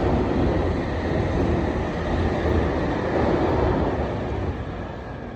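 A passing train running by, a steady noise of the cars on the rails that fades away near the end.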